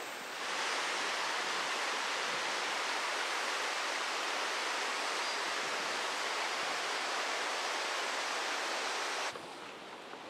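Steady rush of a shallow mountain river running over stones, an even hiss that cuts off abruptly about nine seconds in.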